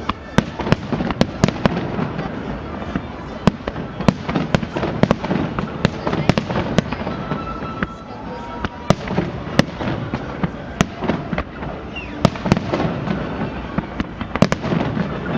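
A fireworks display going off in rapid succession: dozens of sharp bangs and cracks, irregular and overlapping, over a continuous rumble of further bursts.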